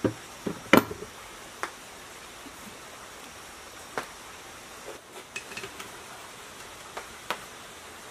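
Scattered metal clicks and knocks from hand-assembling a diesel engine: a small metal cover plate and its bolts being set onto the cast engine block. The loudest is one sharp knock about a second in, followed by lighter, irregular clicks.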